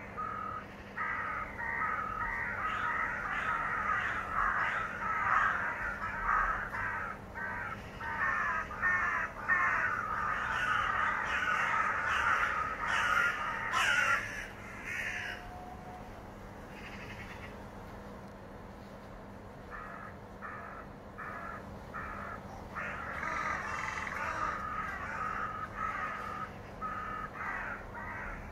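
Several crows cawing over and over, their harsh calls overlapping in a dense chorus. The cawing thins to a lull of a few seconds about halfway, then picks up again.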